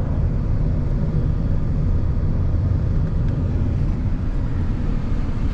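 Steady low rumble of a moving vehicle, with a faint engine hum.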